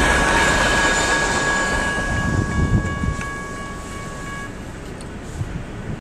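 Burlington Northern freight train rumbling away as its last cars clear the crossing, fading steadily, with a steady high ringing tone over it that stops about four and a half seconds in.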